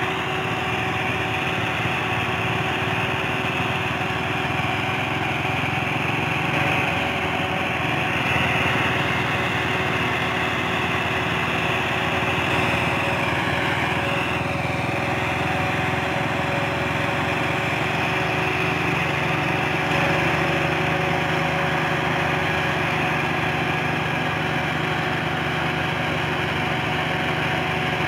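Massey Ferguson 385 tractor's diesel engine running steadily, pulling a heavily loaded sugarcane trolley.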